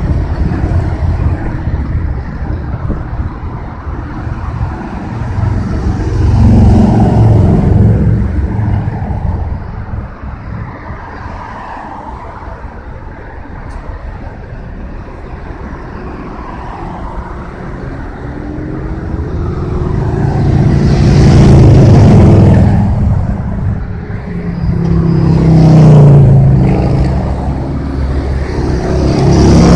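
Motorcycles and other vehicles in a procession passing one after another on a multi-lane road. Engine sound swells and fades with each pass, with the pitch dropping as each one goes by; the loudest passes come about seven, twenty-two and twenty-six seconds in. A fire engine approaches near the end.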